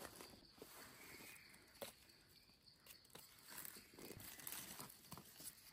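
Near silence with faint rustling and a few small sharp snaps of dry leaf litter being disturbed on the forest floor.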